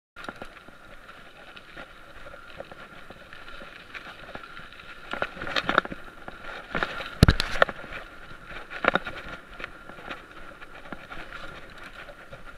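Mountain bike riding over a rough trail, picked up by a chest-mounted SJ4000 action camera: tyre and drivetrain noise with irregular rattles and knocks as the bike hits bumps. The loudest knock comes about seven seconds in, and a faint steady whine runs underneath.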